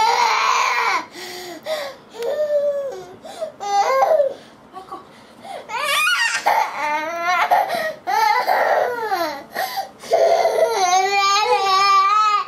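Toddler crying: a run of high-pitched wails broken by short sobbing pauses, ending in one long held wail.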